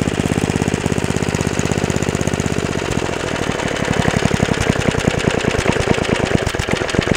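Small gasoline engine running fast with a quick, even firing beat, then slowing about three seconds in to a slower, more widely spaced firing rhythm, like dropping toward idle.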